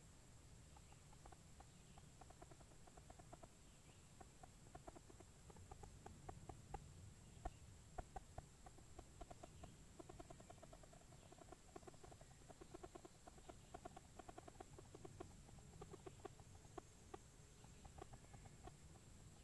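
Faint, quick, irregular tapping: clusters of small knocks, like wood being struck, over a low background rumble.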